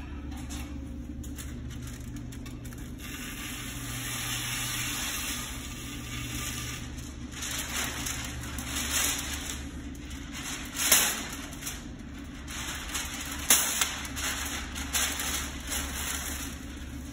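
Masking paper being unrolled and crinkled while a panel is masked for painting, with two sharp rips about eleven and thirteen and a half seconds in. A steady low hum runs underneath.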